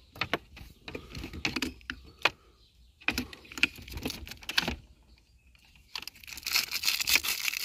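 Hands handling a car's dashboard wiring harness and its plastic connector while refitting a wire, making scattered light clicks and ticks. From about six seconds in there is a dense crinkling rustle from the tape-wrapped harness.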